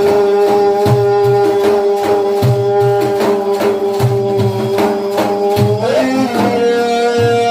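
Devotional music: a long steady held melodic note that slides up in pitch near the end, over an uneven rhythm of hand-drum strokes with deep thumps.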